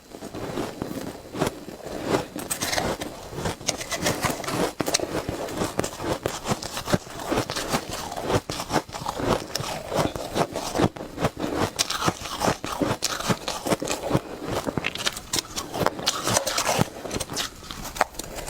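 Close-up crunching of shaved ice being bitten and chewed: a dense, irregular run of crisp crunches and crackles, with scraping among them.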